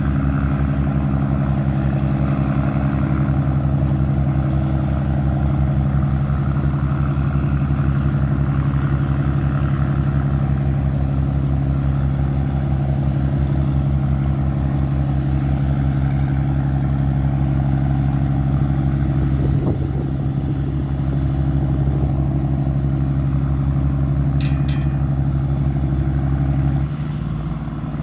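Tugboat's diesel engine running steadily with a deep, even hum; its level drops and its note changes slightly near the end.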